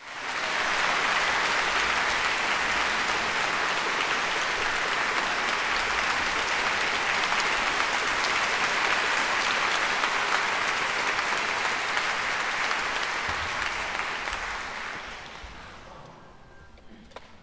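Audience applause, steady and dense, dying away about fifteen seconds in.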